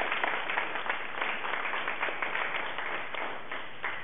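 Audience applauding, the clapping gradually dying down.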